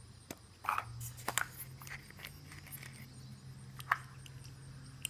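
A few light clicks and taps from small plastic toy parts and an egg capsule being handled and opened, over a low steady hum.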